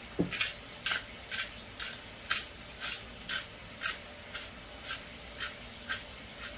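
Pepper shaker shaken over a bowl of refried beans to season them: about thirteen quick, even rattling hisses, roughly two a second.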